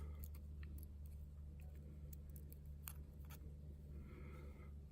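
Faint, scattered light clicks of small lock pins and tools being handled while a Schlage cylinder's pin stacks are taken apart, over a steady low hum.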